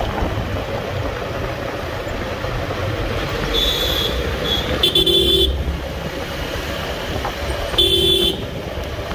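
Vehicle horn honked three times in short blasts, the second and third louder, over the steady engine, road and wind noise of a motorcycle being ridden through city traffic.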